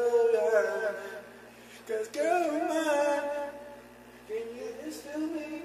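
A man singing unaccompanied in two drawn-out phrases of long, wavering held notes, the first at the start and the second beginning about two seconds in, with a quieter stretch between.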